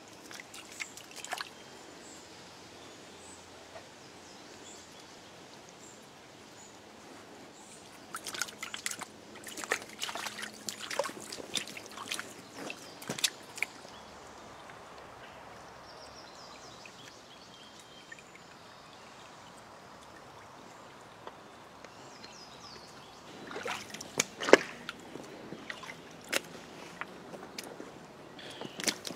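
Shallow rocky stream trickling steadily over stones. Two stretches of sharp clicks and knocks break in, one about a third of the way in and one near the end; the later one is footsteps on the stream-bed stones, and its loudest knock is the loudest sound here.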